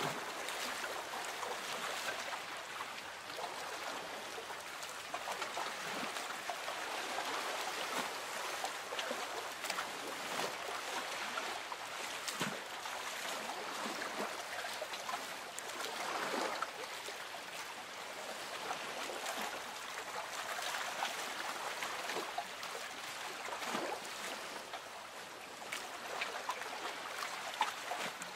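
Gentle lake water lapping and trickling against a boat's hull: a steady wash of small splashes and drips that swells and eases.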